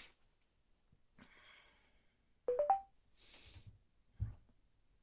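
Bluetooth speaker, the Soundcore Motion+, sounding a short three-note rising chime as it pairs, about two and a half seconds in. Soft faint rustling before and after it, and a sharp click near the end.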